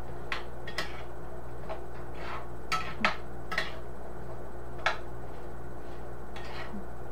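A utensil scraping and clinking against a cast iron skillet as sliced carrots are stirred in melted butter, giving about eight sharp, irregular clicks.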